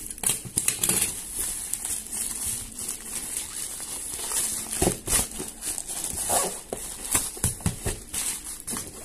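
Thin plastic mailer bag crinkling and crackling as it is torn and pulled off a cardboard watch box, with a few dull knocks from handling the box about halfway through.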